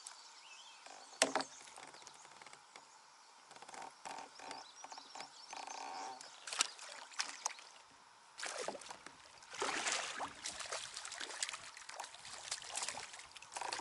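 Kayak paddle strokes splashing and water dripping off the blades, uneven and louder in the second half, with a sharp knock about a second in.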